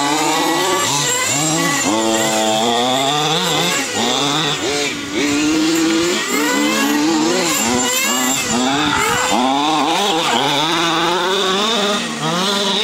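Engine of a radio-controlled car, a small two-stroke, revving up and down over and over as it is driven hard around a dirt track.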